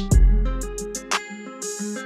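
Instrumental background music with guitar over a beat; the deep bass notes drop out a little after a second in.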